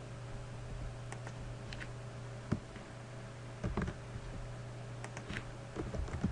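Computer keyboard keystrokes and clicks, sparse and irregular, a few in quick clusters, over a steady low hum.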